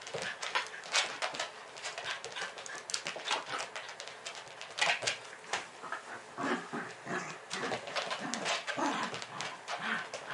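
Miniature dachshund guarding its own mat: it makes short vocal sounds and snaps as the mat is pulled away, mixed with sharp scuffs and knocks, the pitched sounds coming mostly in the second half. The dog bites because it thinks its possession is being taken.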